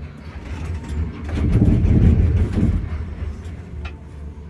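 Aerial cable car cabin in motion: a steady low hum, with a louder rumble that swells up about a second and a half in and dies away about three seconds in.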